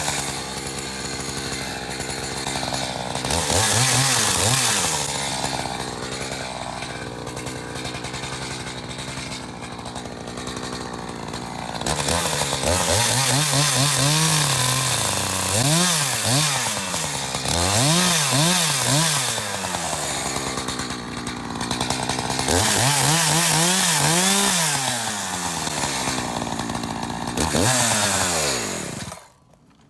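Two-stroke chainsaw, a Stihl-lookalike, running under load and revving up and down over and over, then shut off near the end.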